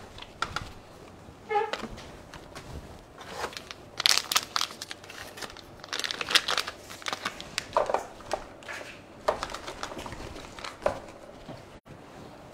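Several cats eating wet food side by side: an irregular run of wet clicks, smacks and crackles from chewing and licking.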